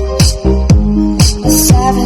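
Electronic dance music played loud through a Rockford 700-watt 12-inch mid-bass speaker on a sound check. A heavy beat lands about twice a second, each low note sliding down in pitch.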